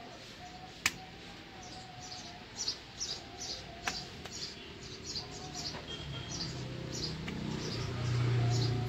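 Small birds chirping in a quick series of short, high chirps, two or three a second. There is a sharp click about a second in and another near four seconds. A low, drawn-out hum swells near the end and is the loudest sound.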